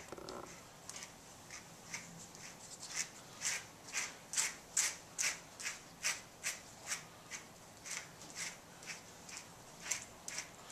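A grooming brush being swept through a dog's long coat in quick, even strokes, a little over two a second, each a short bristly swish. The strokes grow louder and steadier about three seconds in.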